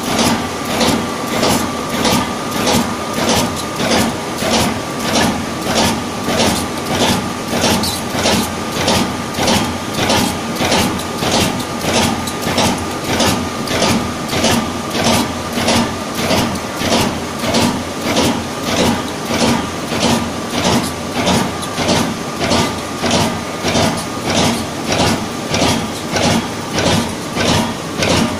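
Mineral jigging machine running, its pulsation beating out a steady, even rhythm a bit more than once a second, over a steady high hum.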